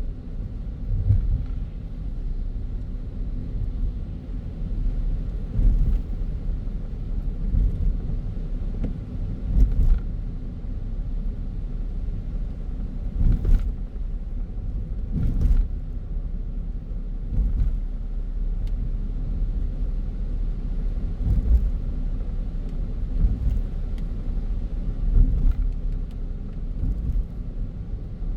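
Car driving on a city road: a steady low rumble of tyres and engine, with a few brief knocks now and then.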